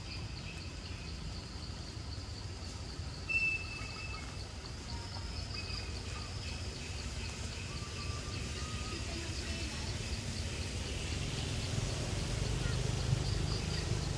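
Forest ambience: insects droning steadily with a pulsing rhythm, a few short bird chirps (the sharpest about three seconds in) and a low rumble underneath.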